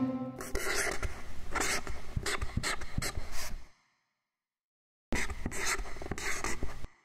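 Marker pen scratching across a writing surface in quick short strokes, in two runs with a silent pause of about a second and a half between them.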